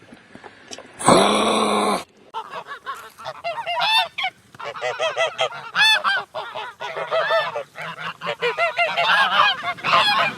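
A flock of geese honking: many short, overlapping calls in quick succession. About a second in, a loud steady tone lasts about a second before the honking starts.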